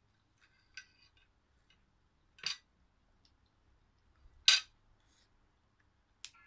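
Metal cutlery clinking against a ceramic plate: a light ringing clink about a second in, then two sharper clinks about two seconds apart, and a click near the end.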